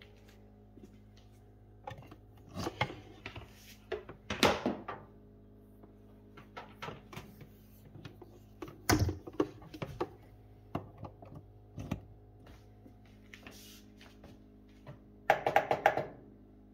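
Scattered knocks and clicks from handling, over a steady low hum, then near the end a quick run of clicks as the control knob and buttons of a Frigidaire EAFO255-SS air fryer oven are worked. The oven will not power on.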